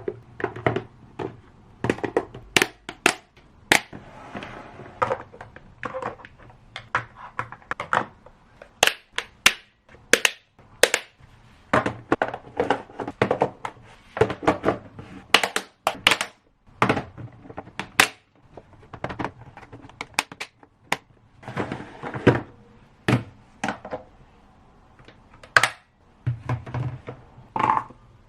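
A long, irregular series of sharp knocks and clacks, several a second at times, with short pauses between runs.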